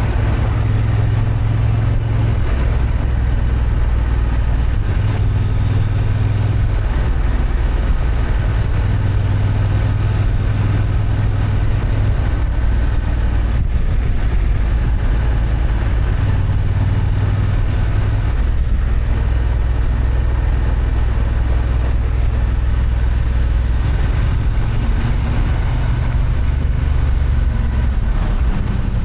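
A 35 kW-restricted Honda XL750 Transalp's parallel-twin engine running under way, with wind noise on the microphone. The engine note steps up and down several times as the throttle and gears change.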